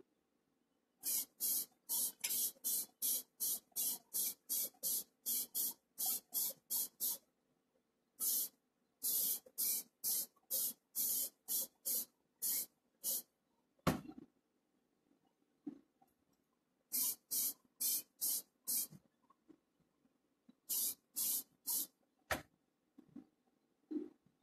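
Grey primer being sprayed in short hissing bursts, two to three a second, in several runs with pauses between them, coating the model's trailer. Two sharp knocks come in the middle and near the end.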